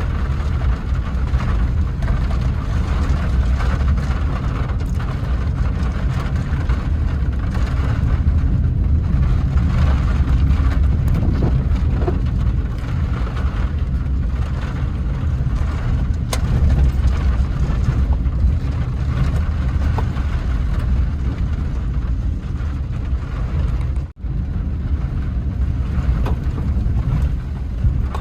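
Steady noise of a car driving in heavy rain: a low road and engine rumble with rain on the car. The sound cuts out sharply for a moment once, near the end.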